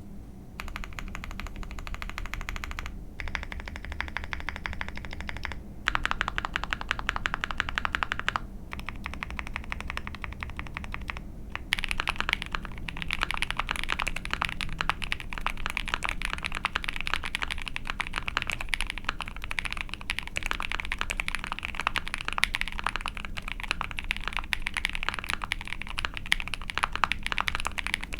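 Typing on a custom ai03 Vega mechanical keyboard with a POM plate, GMK keycaps and lubed Iced Milk frankenswitch linear switches (nylon ice candy long stem, milky top, nylon H1 bottom), giving a rapid stream of key clacks. The typing comes in stretches with short pauses, then from about twelve seconds in runs faster and louder.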